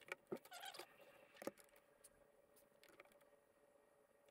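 Near silence with a few faint clicks and small squeaks in the first second and a half, as hands handle a wire and the crimped terminal on the solar panel's junction; a faint steady hum underneath.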